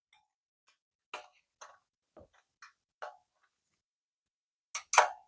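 A 10 mm wrench clicking lightly against the rim lock nut of a dirt bike's rear wheel as the nut is loosened: a handful of faint, separate clicks about half a second apart, then a couple of sharper, louder clicks near the end.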